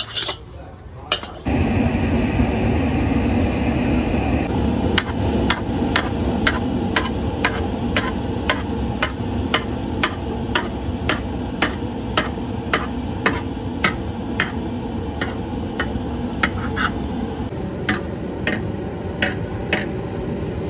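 A hand tool beats a lump of hot cooked sugar candy against a large flat iron pan: sharp, even knocks about two a second, over a steady low rumble. In the first second or so, a metal spatula scrapes and clinks around an iron wok.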